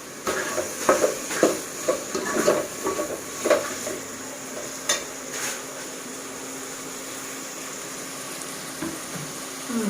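A spoon clattering and scraping in a pot as tomatoes go into frying onions and ginger-garlic paste and are stirred, over sizzling oil. The clatter stops about four seconds in, leaving a steady sizzle.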